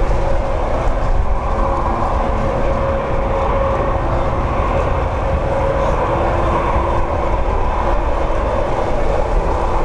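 Jet airliner engines running with a steady whine of several held tones, mixed with wind rumbling on the microphone.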